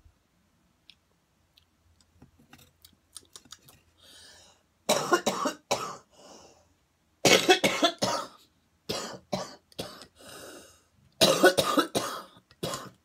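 A woman coughing hard in four fits, starting about five seconds in, after inhaling a dab that was too hot.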